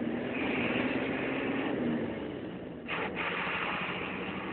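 Bus engine and road noise heard inside the cabin while driving, a steady hum over a hiss, with a short knock about three seconds in.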